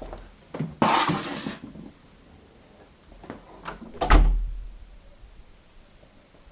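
Indoor handling noises: a few short knocks, a rustling clatter about a second in, then a heavy thud with a low boom a little after four seconds in.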